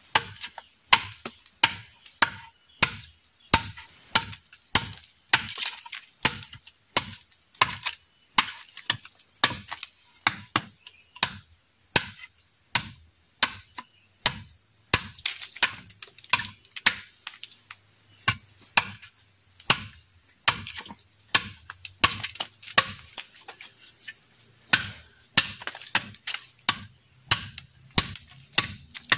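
Freshly sharpened golok tebas (heavy machete) chopping into a standing bamboo stalk: a long run of sharp chops, one every half second or so.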